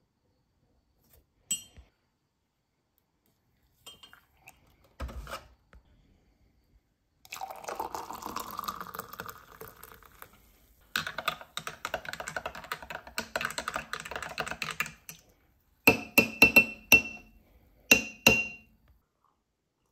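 Hot water poured from a kettle into a glass mug, rising in pitch as the mug fills, after a few light clicks of a spoon. Near the end a teaspoon stirs the coffee with about seven sharp, ringing clinks against the glass, the loudest sounds here.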